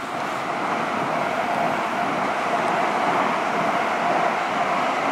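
Passenger train running past: a steady rushing noise that builds over the first second or two and then holds.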